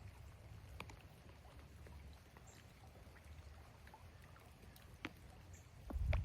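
Scattered raindrops tapping near the microphone over a steady low rumble, with a louder low thump near the end.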